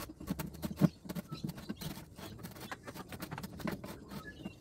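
Irregular light clicks and knocks of hands and tools working the water pump's steel casing on a bench, with one sharper knock just under a second in.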